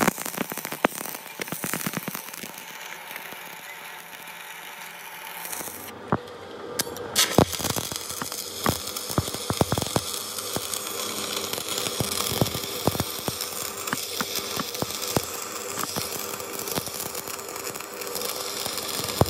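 Electric arc welding on a steel flange and truck axle shaft: the arc crackles and spits with many irregular sharp pops over a steady hiss.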